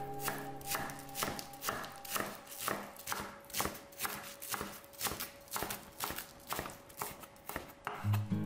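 Kitchen knife slicing spring onions into fine rings on a wooden cutting board: a steady run of sharp knocks, about two cuts a second, as the blade strikes the board.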